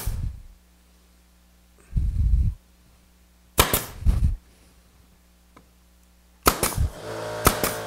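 Grex 18-gauge pneumatic brad nailer firing brads into a plywood shelf: sharp pops in quick clusters at the start, about three and a half seconds in, and several near the end, with dull low knocks between. A steady motor hum sets in near the end.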